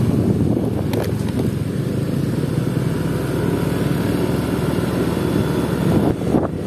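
Motorcycle engine running steadily while riding, with wind rushing over the phone's microphone.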